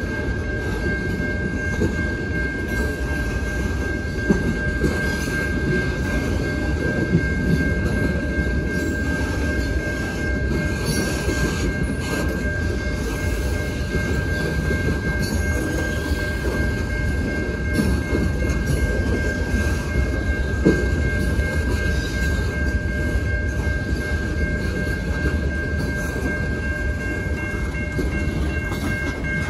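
Boxcars of a long freight train rolling past: a steady, loud rumble of steel wheels on the rails with scattered clicks and knocks. A steady high-pitched tone sounds over it throughout.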